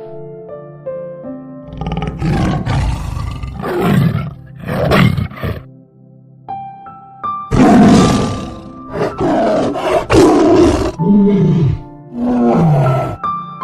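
A large animal roaring and growling in several loud bursts, the last ones sliding down in pitch, over soft background music.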